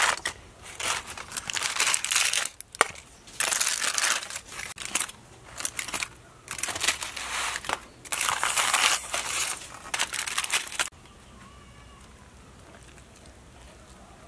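Aluminum foil crinkling and rustling in irregular bursts as foil parcels are pulled open with a spoon in a metal bowl. The crinkling stops about three quarters of the way through, leaving only a faint background.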